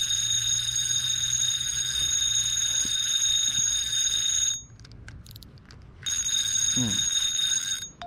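Fishing reel being cranked to retrieve a lure: a steady high-pitched whirring that stops a little past halfway, then starts again about a second and a half later and stops near the end.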